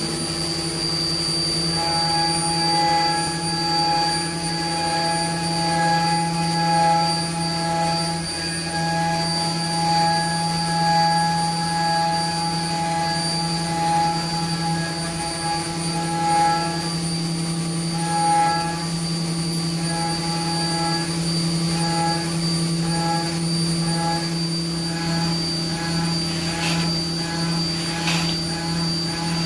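Haas CNC mill's spindle at 10,000 rpm driving a 3/8-inch five-flute KOR5 endmill through aluminum at full depth in adaptive clearing, with coolant spraying. It makes a steady, loud whine with a strong high-pitched cutting tone, swelling and easing every couple of seconds, with a few sharp ticks near the end.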